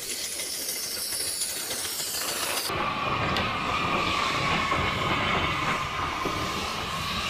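Steam locomotive hissing steam, a steady rushing hiss. About three seconds in the sound changes abruptly and a steady high tone joins the hiss.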